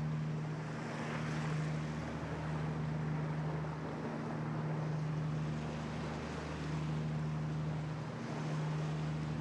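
Steady low drone of a 54-foot Cheoy Lee trawler's engine under way, with the wash of water and wind noise on the microphone over it.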